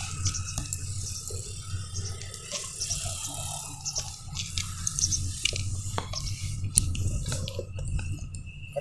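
Sugarcane juice boiling in a wide open iron pan over a fire, bubbling with many small pops over a low steady rumble.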